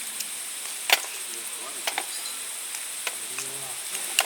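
Campfire burning with a steady hiss and a few sharp pops of wood, about one a second.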